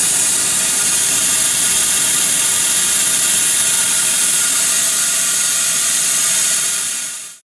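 Angle grinder running steadily on a finished stainless steel pipe weld, leveling out the weld cap; a loud, high, hissing whine that cuts off abruptly near the end.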